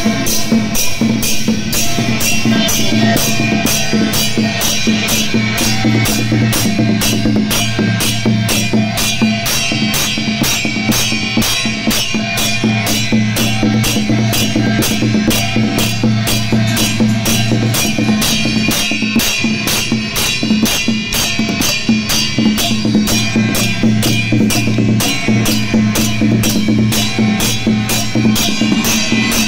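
Background music: an instrumental passage of a Hokkien-language song, carried by a steady drum-kit beat with bass drum and snare under a sustained bass line.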